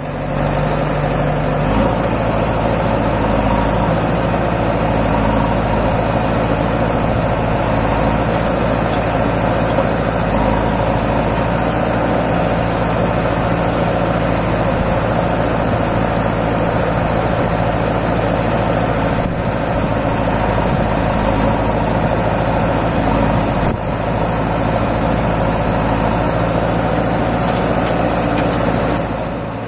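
Diesel engines of a JCB 3DX backhoe loader and a Sonalika tractor running steadily side by side. The low engine note shifts slightly about two seconds in.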